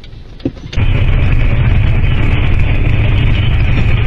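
Loud, steady road and wind noise heard from inside a car driving at highway speed. It starts abruptly about three-quarters of a second in, after a brief quieter stretch with a single thump.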